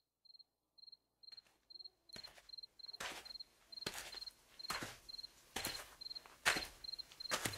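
A high, insect-like chirp repeating steadily about two or three times a second. Over it, a rhythmic noisy stroke comes about once a second, growing louder and becoming the loudest sound.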